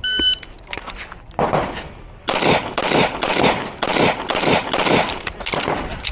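Shot timer's start beep, then pistol shots: two spaced shots, then a fast, even string of about a dozen shots at roughly three a second.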